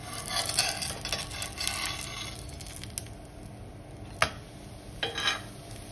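Metal spatula scraping under a thalipeeth on an oiled cast-iron tawa and flipping it over: a rasping scrape at first, a single sharp clack of the spatula on the iron about four seconds in, and a short scrape a second later.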